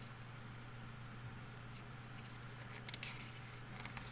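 Faint handling of a paper CD booklet as its pages are turned, with a few soft crackles and ticks of paper about three seconds in, over a steady low electrical hum.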